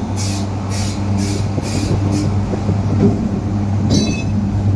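Train at a railway platform: a steady low mechanical hum, with a rhythmic hiss about twice a second for the first couple of seconds and a brief high squeal about four seconds in.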